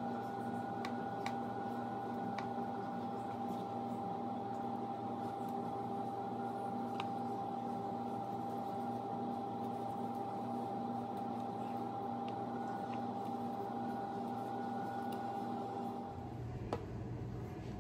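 Steady machine hum holding one high whining pitch over a lower drone, with a few faint clicks. About sixteen seconds in the hum stops and a low rumble takes over.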